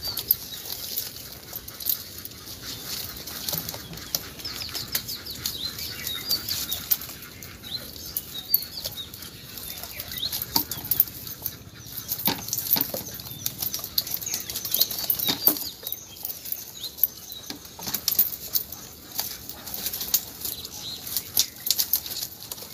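Irregular splashing and flapping of fish thrashing in a fishing net as it is hauled through the water.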